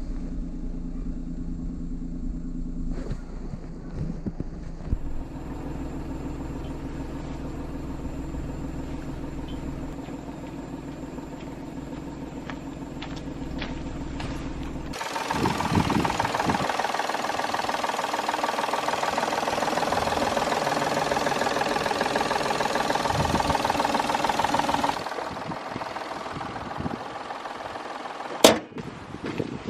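Daihatsu Move's three-cylinder engine idling steadily on its new ignition coils and spark plugs. About halfway through, a louder rushing noise takes over for about ten seconds, and a single sharp click comes near the end.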